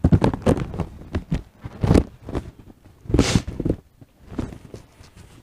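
Water thrown by hand over a body lying on a washing table, heard as a few short, irregular splashes and knocks, with a brief hissing splash about three seconds in.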